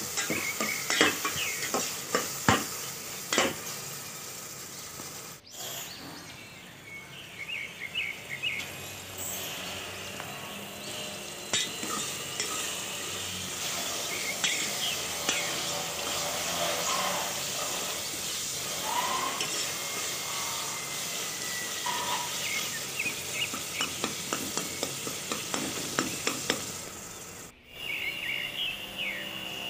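Chopped onions, tomatoes and peppers sizzling in oil in an aluminium pot, while a spoon stirs and scrapes through them with frequent clicks against the metal. The clicks are busiest in the first few seconds and again near the end. The sound breaks off for an instant twice.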